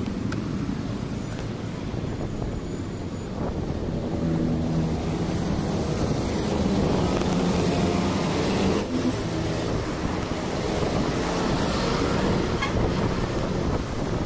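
Wind buffeting the microphone over road traffic noise. A motor vehicle's engine passes, rising about four seconds in and fading out near the nine-second mark.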